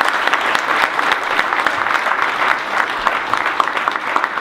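A crowd applauding: many people clapping their hands in a dense, steady patter.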